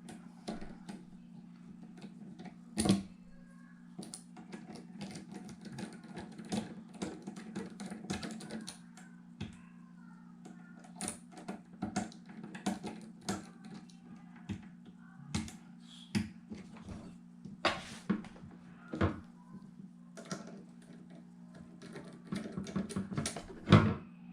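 Small screwdriver unscrewing and lifting off an all-in-one computer's stand: irregular clicking, ticking and tapping of the tool and the plastic and metal parts, with a few louder knocks, over a steady low hum.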